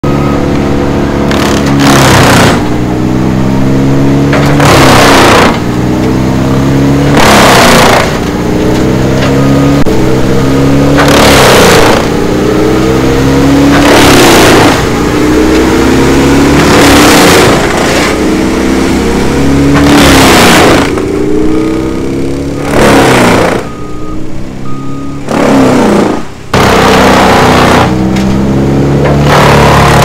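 Tree chipper chewing through pine branches: a loud crunching burst of chipping comes about every three seconds, and each time the engine dips under the load, then climbs back up in pitch.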